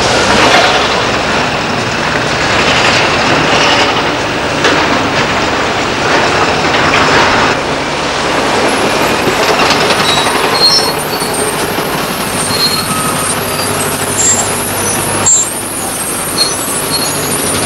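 Heavy diesel dump truck running at a construction site, with knocks and rock clatter in the first half and short high squeaks in the second.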